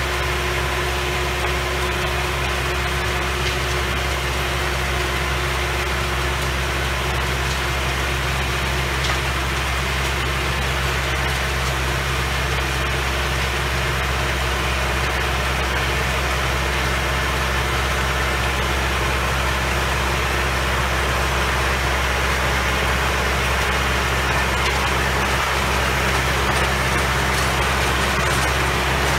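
Antonio Carraro TRX 9900 tractor's diesel engine running steadily under load while its rear rotary tiller churns the soil. The sound grows slightly louder toward the end as the tractor comes closer.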